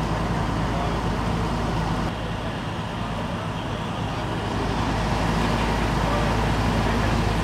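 Steady low diesel engine rumble, of the kind a fire engine makes idling at a crash scene. It dips slightly about two seconds in and comes back up a few seconds later.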